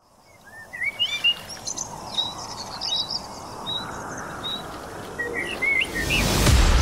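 Birds chirping and singing in short rising and falling calls over a soft hiss, fading in from silence. Near the end a rising whoosh swells up.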